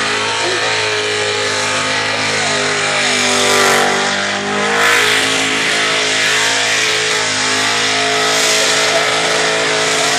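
Supercharged 355-cubic-inch V8 of a VK Commodore held at high revs during a burnout, with the hiss of spinning tyres. The revs dip briefly about four seconds in, then climb back and hold.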